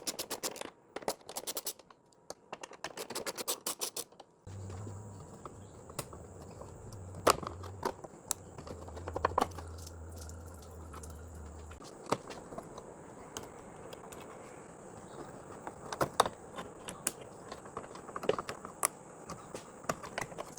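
Ratchet wrench clicking in short rapid bursts, then scattered clicks, taps and scrapes of tools and metal parts being handled. A low hum runs for several seconds in the middle.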